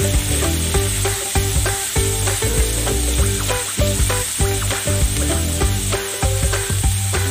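Beef strips sizzling as they stir-fry in a stainless steel pan, stirred with a wooden spoon, under background music with a steady bass line.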